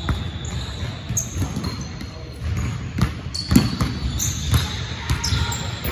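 A basketball being dribbled on a hardwood gym floor, a run of sharp bounces with a few louder strikes midway. Short high sneaker squeaks come in between the bounces.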